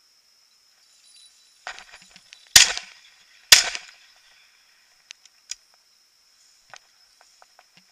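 Two shotgun shots about a second apart, fired at flushing hen pheasants, each followed by a short dying echo. A brief rustle comes just before the first shot.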